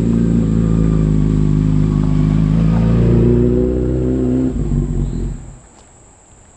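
Motorcycle engine running steadily, its pitch rising a little about three seconds in, then fading away about five seconds in.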